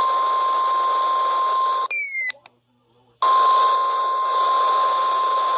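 NOAA Weather Radio warning alert tone received over the air: a steady high tone over radio hiss, sounding for about two and a half seconds, breaking off for about a second, then sounding again. A brief chirp marks each break.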